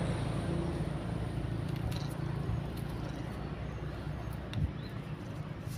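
Low steady rumble of a motor vehicle engine, slowly fading, with a small thump a little over four and a half seconds in.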